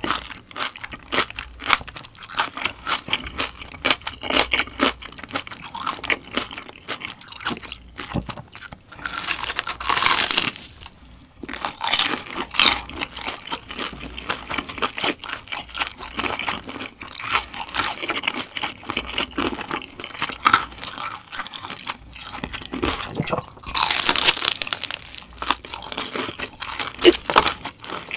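Close-up crunching and chewing of a breaded, deep-fried pork cutlet, with louder spells of crunching about ten seconds in and again near twenty-four seconds.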